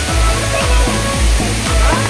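Background music with a steady beat of deep bass thumps about twice a second, over the steady rush of a waterfall.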